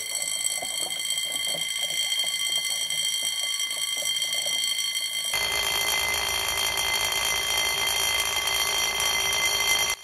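Electric fire sprinkler alarm bell ringing continuously, set off by the water flow of a sprinkler head that has just activated.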